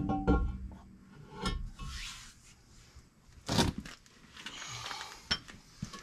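Heavy steel truck brake drum being handled and slid onto its hub: metal knocks and clunks, the sharpest at the start and about three and a half seconds in, with scraping and rubbing between them.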